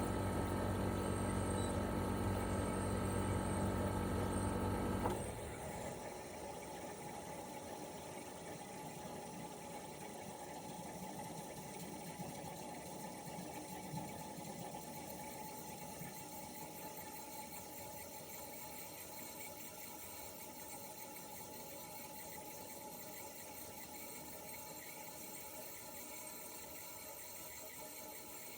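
Toshiba RAS-285BAD air-conditioner outdoor unit in cooling operation, its twin-rotary compressor giving a smooth steady hum. About five seconds in, the hum cuts off abruptly with a small click. A much quieter steady running sound stays and slowly fades.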